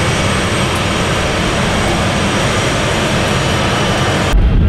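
Boeing C-17A Globemaster III's four turbofan jet engines running at high power in reverse thrust to back the aircraft up: a loud, steady jet roar with a high whine. Near the end the sound changes abruptly to a deeper, louder rumble with the whine gone.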